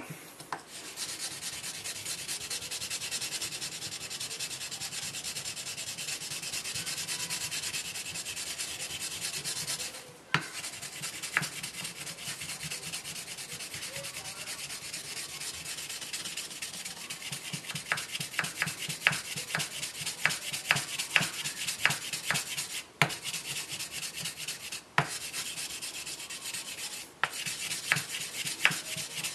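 A wooden block scrubbing a steel knife blade on a whetstone with a gritty white abrasive paste, in quick back-and-forth strokes that make a steady rasp. It stops briefly a few times, and sharp ticks come in among the strokes in the second half. The scrubbing takes off rust and stain to bring back the whetstone-mark finish.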